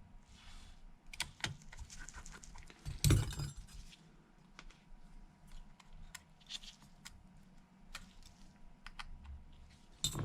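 Small metal clicks and taps from tiny phone screws and precision tools being handled. There is one louder clatter about three seconds in.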